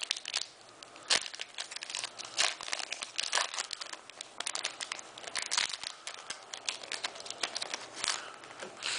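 Foil trading-card booster pack wrapper crinkling and crackling in irregular bursts as it is worked open by hand.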